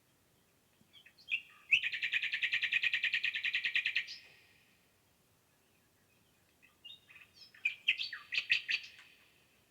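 A songbird singing in the forest: a fast, even trill of about two seconds, then after a pause a shorter, choppier phrase near the end.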